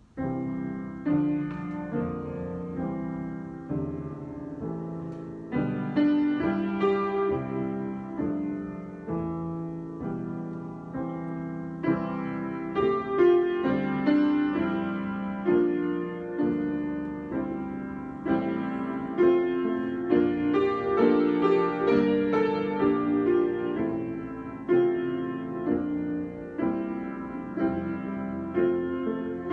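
Solo piano improvisation, slow and gentle, with chords and melody notes played continuously after a sudden start.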